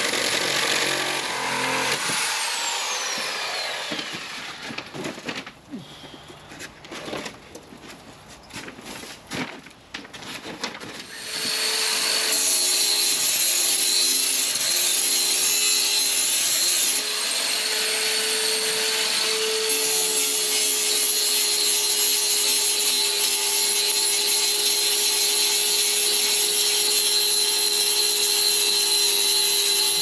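Bosch power saw cutting down a window sill. A first cut fades out after about four seconds and gives way to a few seconds of scattered knocks. Then, from about eleven seconds in, comes a long, steady cut with an even whine.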